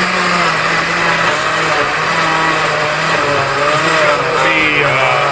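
Kitchen blender running steadily, blending sauce.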